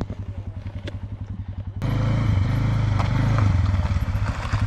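Arctic Cat Alterra 500 ATV engine running at a low, evenly pulsing idle, then louder about two seconds in, rising and falling in pitch as it is ridden up close.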